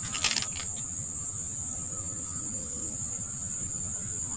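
Insects droning steadily at one high pitch. A short rattle of clicks comes about a quarter second in.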